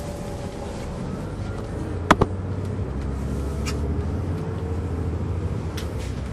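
Detroit Diesel Series 60 engine of an MCI D4000 coach bus running steadily, heard from inside the bus, with a sharp double click about two seconds in and a few fainter clicks later.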